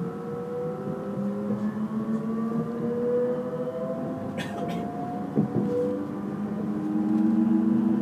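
Siemens Desiro electric multiple unit heard from inside the passenger car: its traction motors whine in several tones that climb slowly in pitch as the train gathers speed, over a steady rumble of wheels on rail. There are two sharp clicks about halfway through.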